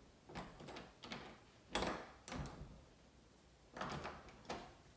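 A door being pushed against and its knob worked: a handful of short knocks and rattles, the sharpest about two seconds in.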